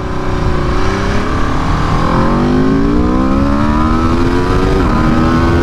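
The 2022 Aprilia RSV4 Factory 1100's V4 engine, on stock ECU tuning and the stock exhaust, accelerating hard at full throttle in first gear, its pitch rising steadily. Near the end the pitch drops sharply and then starts climbing again.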